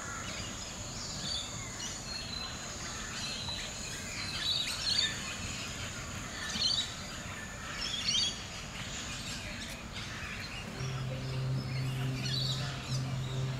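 Birds chirping and twittering in short bursts over steady outdoor background noise, with a constant thin high-pitched whine underneath. Near the end a low steady hum comes in.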